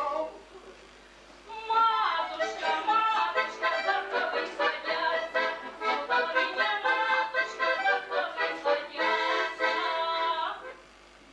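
Accordion playing a melody of quickly changing notes, starting about a second and a half in and stopping shortly before the end.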